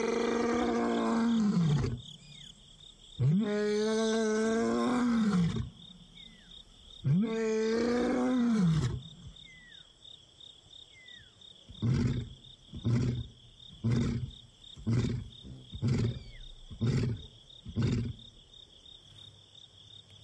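Male lion roaring: three long moaning calls followed by a run of about seven short grunts, roughly one a second, that tail off. It is a long-distance contact roar, calling for a separated companion.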